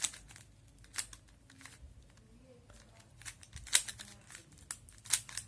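Plastic Rubik's Cube layers being turned by hand, giving irregular sharp clicks. The clicks come more often in the second half.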